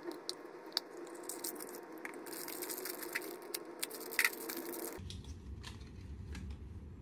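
Clear plastic gashapon capsule clicking as it is pried open, then a thin plastic bag crinkling and crackling in the hands, with sharp snaps, stopping suddenly about five seconds in.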